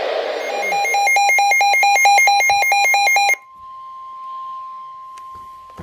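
Weather alert radio's electronic alarm beeping rapidly, about five short beeps a second for roughly three seconds. It cuts off suddenly and is followed by a fainter, steady single alert tone near 1 kHz.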